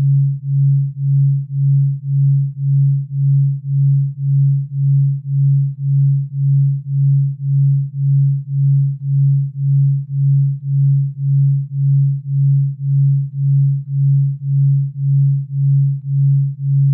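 A steady low sine tone that swells and fades evenly a little under twice a second: a delta-wave pulse meant for sleep and recovery.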